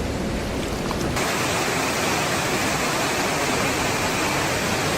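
Steady rushing of flowing water, an even hiss with no distinct events; it changes abruptly about a second in, becoming brighter and fuller.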